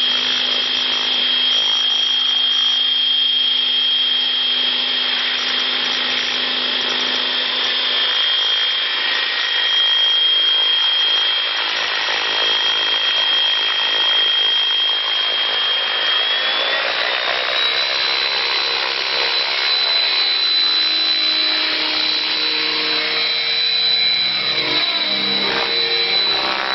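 Radio-controlled model helicopter in flight: a steady high-pitched whine over a rushing rotor noise. The whine rises to a higher pitch about two-thirds of the way through and then holds there.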